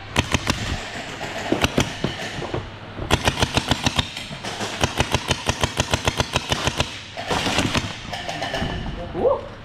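Electric gel blasters firing on full auto: several rapid bursts of sharp clicking shots, about ten a second, the longest lasting around two seconds.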